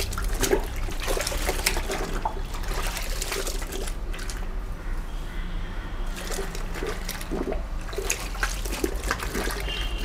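Hands dunking and pressing soaked cloth floor mats down into soapy water in a plastic tub: irregular sloshing and splashing.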